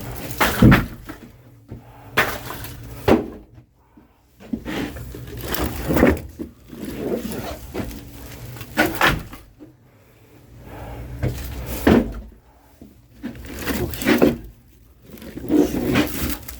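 Split oak firewood logs knocking and clattering as they are set down one by one onto a pile, a sharp wooden knock every one to three seconds.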